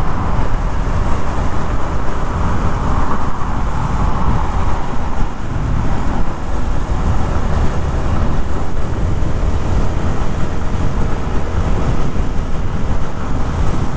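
Steady wind and road noise from riding a Yamaha Sniper 150 motorcycle, with its 150 cc single-cylinder engine running underneath and traffic around.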